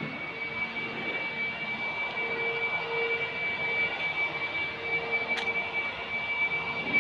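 A steady, high-pitched mechanical whine over a rushing noise, slowly growing louder, with a short click about five seconds in.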